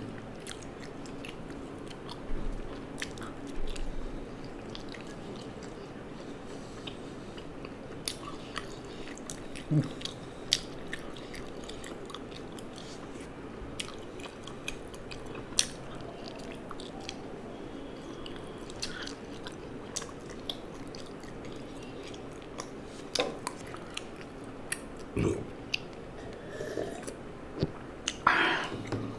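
A person chewing and biting food close to the microphone, with scattered sharp crunches and mouth clicks.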